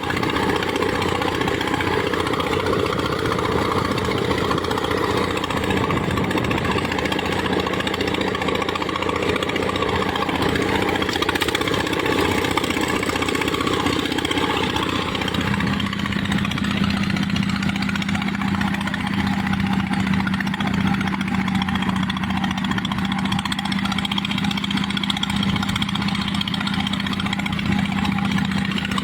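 Engine of a water-line drilling machine running steadily; about halfway through its sound changes and settles into a steadier hum.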